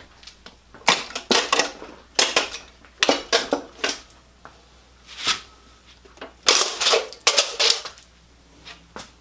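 Sharp metallic clicks and clinks in quick clusters, several times over: hydraulic lifters being pulled from an LS V8 block with needle-nose pliers and handled.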